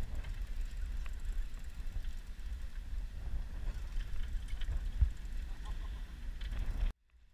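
Steady low rumble of wind and sea heard aboard a sportfishing boat, with one thump about five seconds in; the sound cuts off suddenly near the end.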